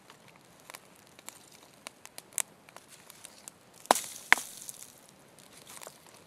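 Small wood campfire of kindling crackling, with twigs and sticks snapped and laid on by hand; scattered light cracks and two loud sharp cracks close together about four seconds in.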